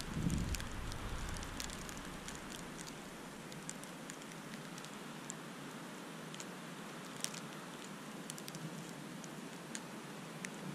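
Wind in a heavy snowfall: a steady hiss with a gust buffeting the microphone at the start, and scattered light ticks of blowing snow hitting the camera.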